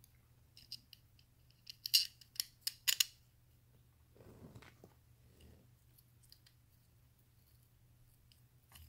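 Small screws, nuts and standoffs clicking against each other and the circuit board as they are handled, in a cluster of sharp clicks about two to three seconds in. This is followed by a softer handling rustle.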